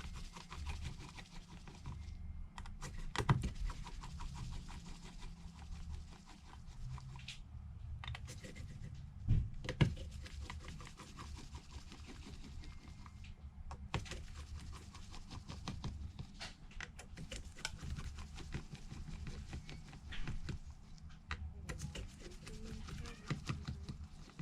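Small clicks and taps of a hand screwdriver and metal screws as the tiny screws are taken out of a phone, over a low handling rumble, with a few sharper knocks about 3, 9 and 14 seconds in.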